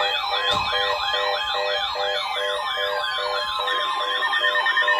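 Several electronic sirens sounding together: a yelp sweeping upward over and over, about three times a second, with a faster warble higher up, steady pulsing tones beneath, and a slow falling glide about two seconds in.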